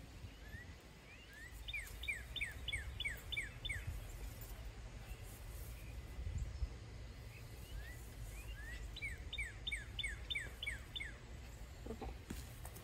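A songbird singing two phrases, each a couple of rising notes followed by a quick run of about seven repeated downslurred notes, over a steady low rumble.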